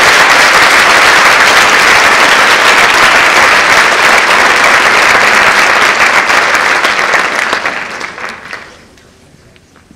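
Audience applauding in an auditorium: dense, steady clapping that thins out and dies away about eight seconds in.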